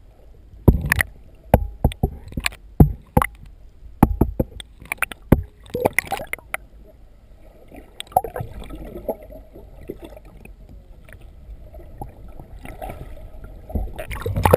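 Sharp knocks and bumps against a submerged camera, many in quick succession during the first five seconds and again near the end, with water gurgling and sloshing around the housing in between.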